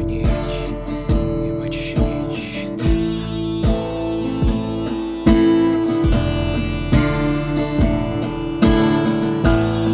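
Band music: strummed acoustic guitar chords over a steady beat, with no vocals in this passage.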